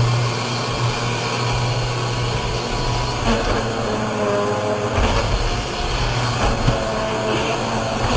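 Panasonic MC-UL425 Jet Force bagless upright vacuum cleaner with a 12-amp motor, running loud and steady as it is pushed from hardwood floor onto an area rug; a deeper rumble joins about five seconds in.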